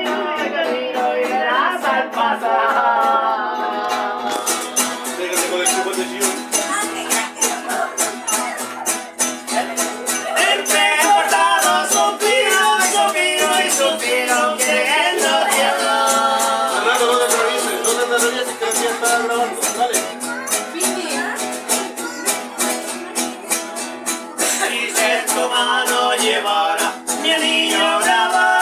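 Two acoustic guitars strummed while men sing a folk song together; a crisp, steady beat comes in about four seconds in.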